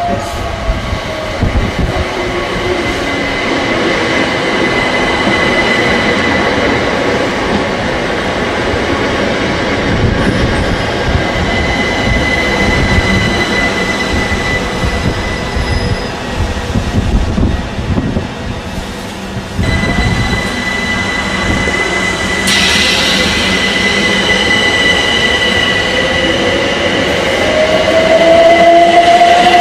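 A c2c Electrostar electric multiple unit running close past the platform, its wheels rumbling on the rails under a steady high whine. Near the end a whine rises in pitch as the train picks up speed.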